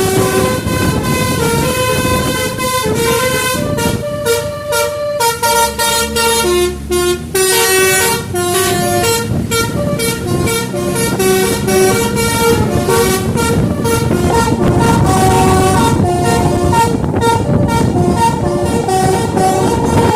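Basuri musical bus horn (telolet) playing its tune: a fast run of short notes stepping up and down in repeated melodic phrases, over a steady rumble.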